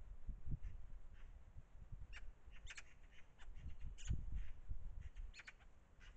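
Eurasian magpie giving short, clipped chacking calls, a few in quick succession about two seconds in, again around four seconds, and near the end, over irregular low rumbling on the microphone.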